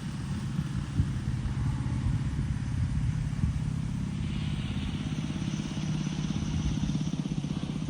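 A motor vehicle's engine running steadily at an even pitch, with a low, fast, regular throb. From about four seconds in, a higher steady hiss joins it.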